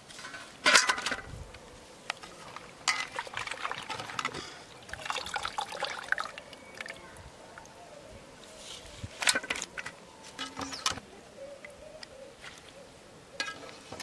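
Thin raw potato slices being rinsed in a steel bowl of water and lifted out: water splashing and dripping in several short bursts.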